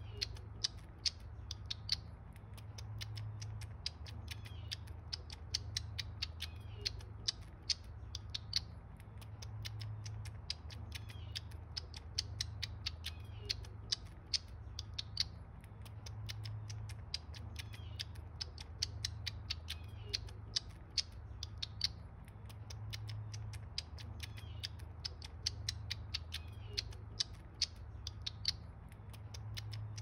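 Baby grey squirrel suckling from a feeding syringe's nipple: a steady run of quick, wet sucking clicks, several a second.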